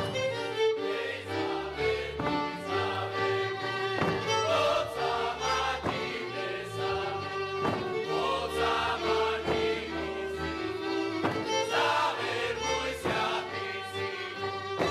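Slovak folk dance music from the Šariš region: a folk band led by fiddles plays a dance tune with a regular beat, and a group sings along with it.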